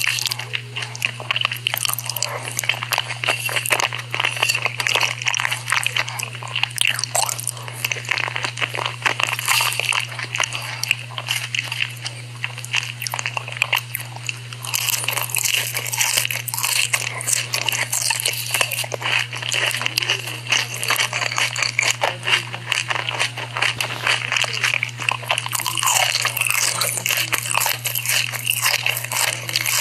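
Close-miked ASMR eating sounds: dense, irregular crunching and biting into crispy corn dogs, with chewing in between. A steady low hum runs underneath.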